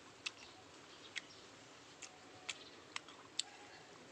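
Crisp clicks and crunches of a mouthful of raw guava being chewed, about six sharp clicks at uneven intervals over a quiet hiss.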